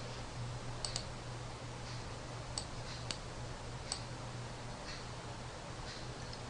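Computer mouse button clicking a handful of times, two clicks close together about a second in and single clicks a few seconds later, over a steady low hum and hiss.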